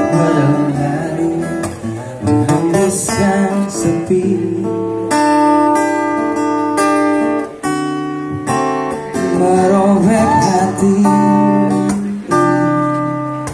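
Music: acoustic guitar playing with a singer.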